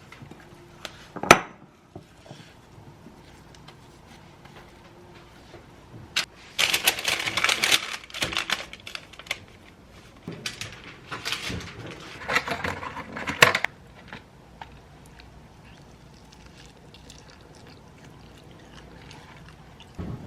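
Kitchen clatter of dishes and utensils being handled: a single sharp knock about a second in, then two spells of busy clinking and rustling.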